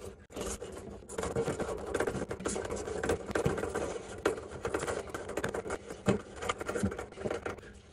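Kitchen faucet's threaded mounting nut being hand-tightened up the shank, against its rubber and metal washers: a run of scraping and rubbing with small clicks from about a second in, fading near the end.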